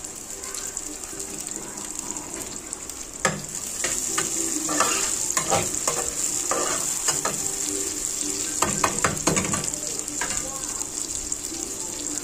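Green beans with onion, garlic and green chilli frying in mustard oil in a kadhai, sizzling steadily. From about three seconds in until near the end, a metal spatula scrapes and clicks against the pan as the vegetables are stirred.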